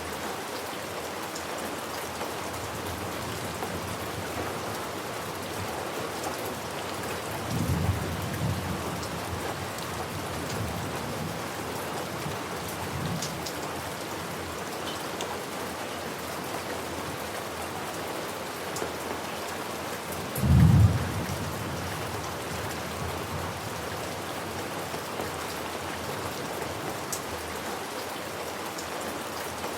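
Steady rain falling, with thunder rumbling twice: a moderate rumble about a quarter of the way in and a louder, shorter one about two-thirds through.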